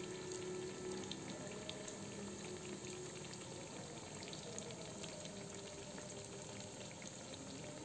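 Breaded chicken nuggets deep-frying in hot oil in a pan: a steady sizzle with many small pops.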